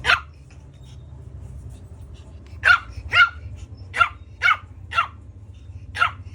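A seven-week-old shih tzu puppy yapping: about eight short, high-pitched barks, mostly in quick pairs. It is excited and begging for curd (yogurt).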